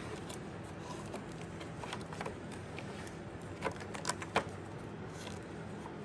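Light clicks and rustling of a motorcycle wiring harness and its plastic connector being handled and routed by hand, with a few sharper clicks a little past the middle.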